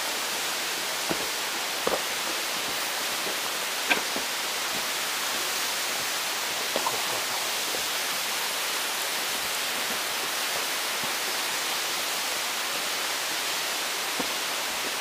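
A steady, even rushing hiss with a few faint short clicks, about one, two, four and seven seconds in.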